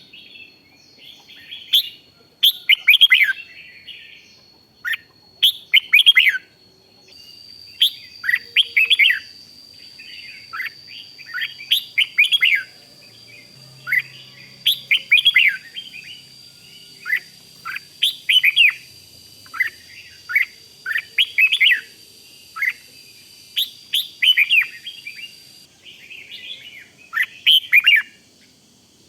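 Red-whiskered bulbul singing: short, bright warbled phrases repeated about once a second with brief pauses. A faint steady high whine runs under the song.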